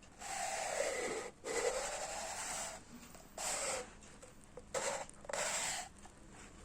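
A person's loud, forced breaths: two long breaths of over a second each, then three shorter ones.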